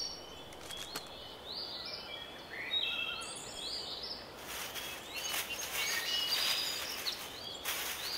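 Small birds chirping over and over in short rising and falling notes, with a steady outdoor background hiss. Bursts of rustling come in about halfway through and again near the end.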